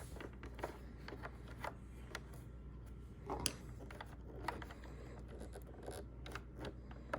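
Scattered small clicks and taps of plastic Roomba 960 parts being handled and fitted back into place, with one sharper click about three and a half seconds in.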